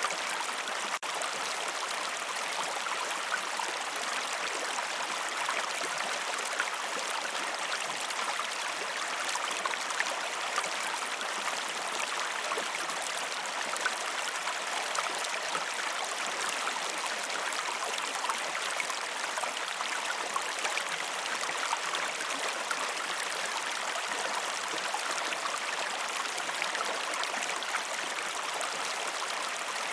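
River and waterfall water rushing steadily: an even, continuous rush with little deep rumble, flecked with small splashes and droplet ticks.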